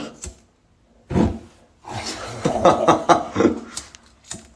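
Muffled voices with some laughter, after a knock about a second in.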